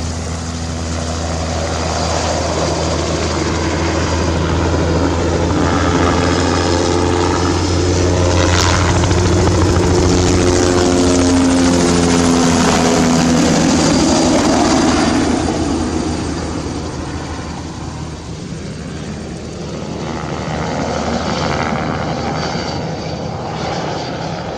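Bell 206 JetRanger helicopter, its two-bladed main rotor and turboshaft engine, flying low overhead. The sound builds, is loudest for several seconds around the middle as it passes over, then fades as it flies off.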